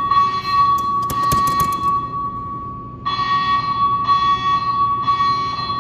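Building fire alarm speaker strobes sounding a loud, steady high electronic tone that breaks into groups of three beeps with a pause between groups, the evacuation signal pattern. A short run of sharp clicks comes about a second in.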